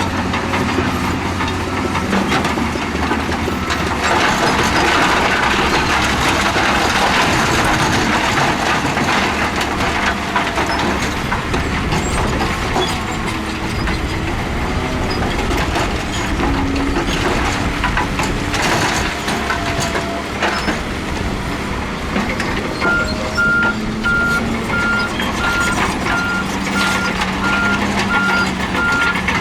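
Heavy earthmoving machinery running, diesel engines working under load with a steady rumble and clatter. About three quarters of the way in, a reversing alarm starts beeping at an even pace.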